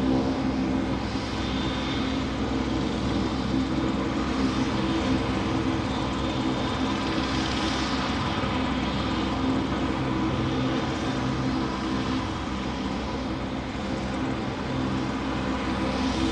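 Steady engine drone, a constant low hum with an even hiss over it, unchanging throughout.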